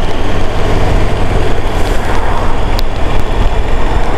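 Riding noise from a moving motorcycle on a wet road: a steady low rumble with wind rush on the microphone, and no clear changes in pace.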